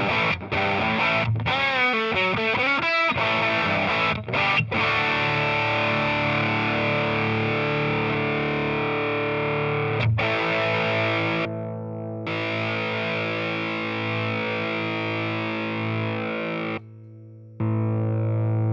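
Overdriven electric guitar played through a Ramble FX Marvel Drive, a Marshall-style overdrive pedal. A quick lead lick comes first, then a chord is left ringing and struck again about ten seconds in. Near the end the sound drops abruptly and comes back as the pedal footswitches are pressed.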